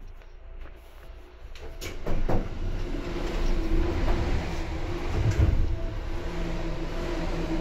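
Seibu 2000 series electric train heard from inside the car: a few clatters about two seconds in, then the louder rumble of the train running on the rails with a steady hum.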